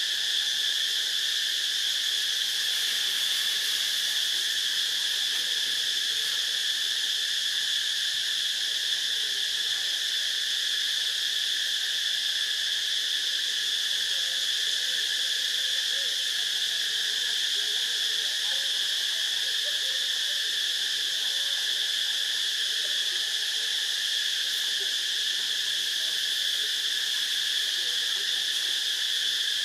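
Steady, unbroken drone of a forest insect chorus: a high-pitched band with a fainter, lower one beneath it, holding at an even level.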